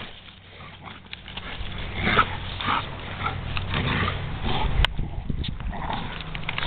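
Chocolate Labrador huffing and sniffing hard through its nose while it tugs a large tree limb, with the limb scraping and rustling over grass and dirt. One sharp click comes just before five seconds in.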